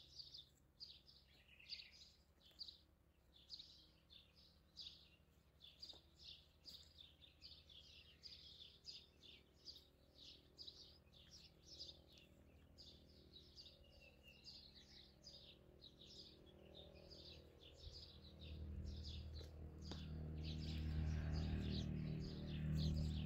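Small birds chirping over and over, short high notes several times a second. A low hum swells in over the last few seconds.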